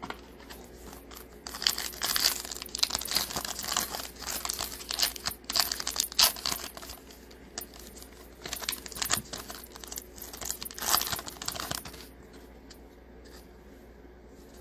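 Crinkly wrapper of a trading card pack being torn open and crumpled, in two stretches with a short pause between, going quiet near the end.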